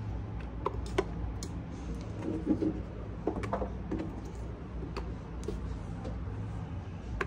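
Scattered light clicks and taps of kitchen handling: ginger and green onion pieces placed into a rice cooker's inner pot and a cutting board moved about, over a steady low hum.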